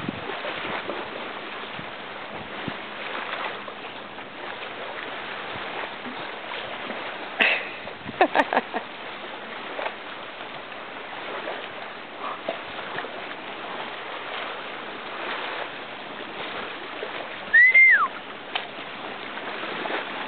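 Water splashing and sloshing as two Chesapeake Bay Retrievers swim and paddle together, over a steady hiss of choppy water and wind. A short whistle-like chirp, rising then falling, stands out about three-quarters of the way through.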